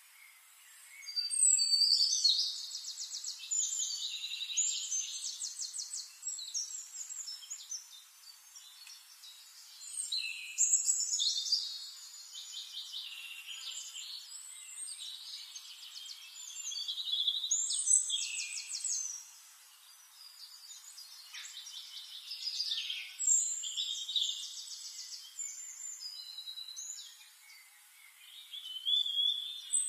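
Songbirds singing: high chirps and rapid trills in phrases of a few seconds, separated by short quieter gaps.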